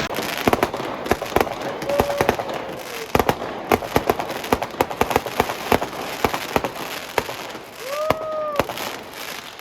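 Fireworks going off: many sharp bangs and cracks at irregular intervals over a steady crackling din, with a whistle rising and fading twice.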